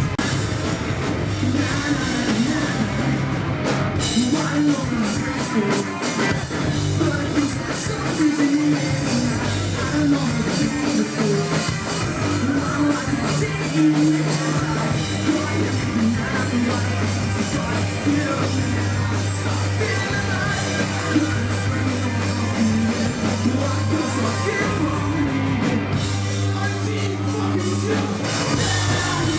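A rock band playing live and loud, with a singer over the band.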